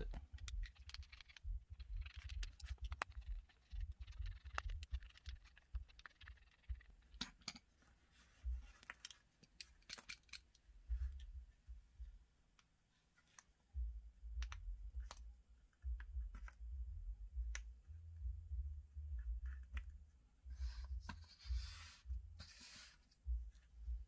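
Small clicks and scrapes of a T7 Torx screwdriver turning out the handle screws of an automatic out-the-front knife, the knife being handled and the screws set down on paper. Scattered light ticks with a few short scratchy rasps near the end.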